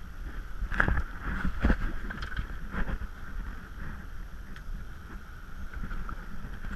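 Wind buffeting the camera over steady boat and water noise, with several sharp knocks in the first three seconds as a fish is handled on the fibreglass deck.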